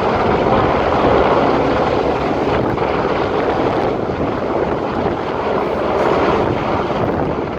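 Rescue helicopter's rotor and turbine giving a steady, loud roar, mixed with gusting wind on the microphone.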